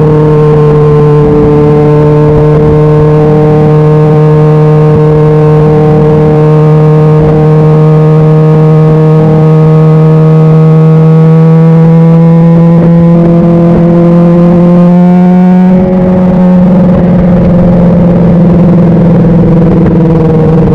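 Honda CBR600RR's inline-four engine running steadily while the bike is ridden, its pitch creeping slowly up over about fifteen seconds, then dipping briefly and holding steady again.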